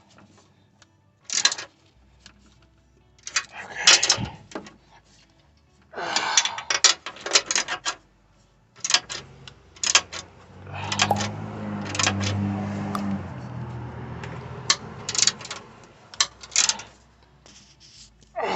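Socket ratchet clicking in short bursts as bolts are run in and tightened on an air suspension compressor mount. A low hum comes in about halfway through.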